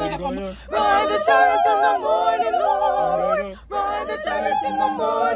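A group of voices singing a cappella in harmony, holding long wavering notes, with two short breaks for breath, about half a second in and past the middle.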